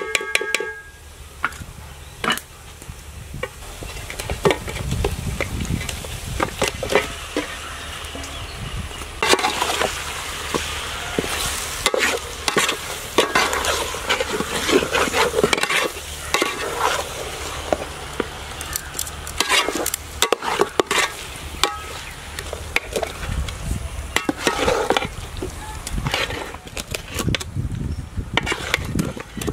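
Metal ladle stirring and scraping chicken pieces and masala in a large aluminium pot, with frequent scrapes and knocks over a frying sizzle. A short metallic ring at the very start.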